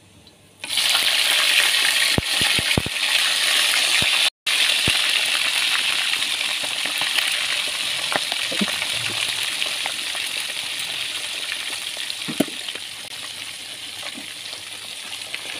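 Chicken pieces frying in hot oil: a loud sizzle starts suddenly about a second in and slowly dies down, with a few sharp clinks soon after it starts.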